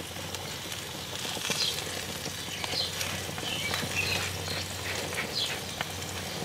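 Stuffed portobello mushroom caps sizzling steadily on a hot gas grill.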